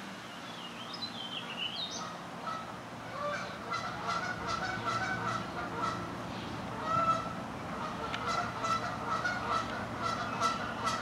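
Canada geese honking: a run of short calls in quick succession, starting about three seconds in and carrying on steadily.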